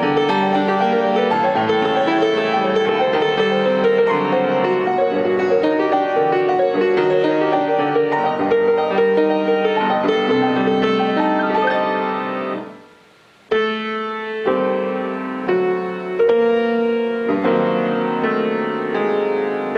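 Solo grand piano playing a classical prelude: a dense, flowing passage that dies away about twelve and a half seconds in, a brief pause, then slower, separately struck chords, each left to ring.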